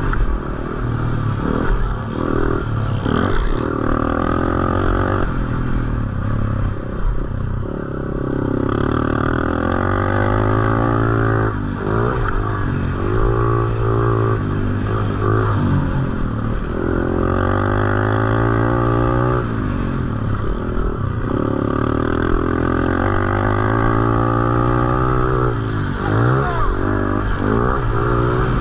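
Honda CRF110 pit bike's small single-cylinder four-stroke engine, revved hard and repeatedly climbing in pitch then dropping back as the throttle is opened on the straights and shut off for the turns.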